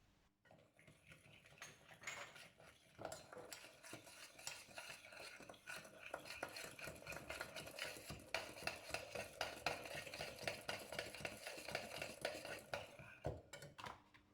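A utensil stirring and beating a thick egg, sugar and cornstarch mixture in a bowl, with rapid light clicks against the bowl. The stirring starts a couple of seconds in and stops shortly before the end.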